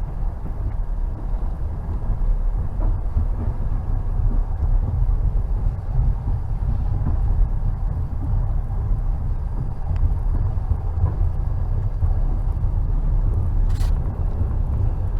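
Passenger train rolling along, its wheels on the rails making a steady low rumble. There is one brief sharp click near the end.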